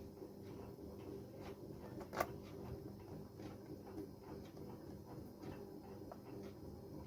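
Quiet room tone with faint small ticks and taps, and one sharper click about two seconds in.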